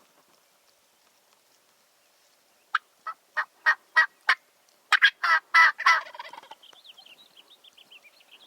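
A series of turkey yelps, about three notes a second, growing louder, then a fainter, fast quavering run of higher notes near the end.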